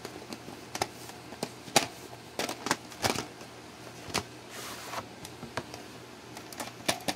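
A plastic VHS cassette and its sleeve being handled: scattered clicks and taps, with a brief rustle about halfway through.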